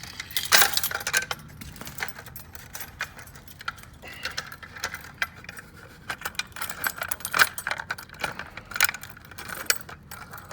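A bunch of keys jangling with irregular small metallic clicks and clinks while a fire alarm pull station is handled and keyed open or reset.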